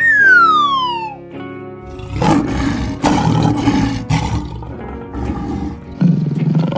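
A falling cartoon whistle sound effect, then a lion roaring loudly for about two seconds, with a shorter roar near the end, over children's background music.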